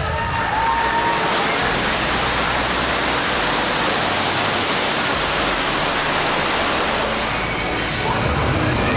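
Water vortex tunnel effect: a steady rush of a large mass of water circulating around the tunnel walls.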